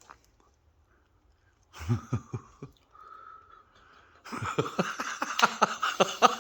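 A man wheezing and gasping in quick breathy pulses, three or four a second, that grow louder through the last couple of seconds and turn into laughter. A few short vocal sounds come about two seconds in.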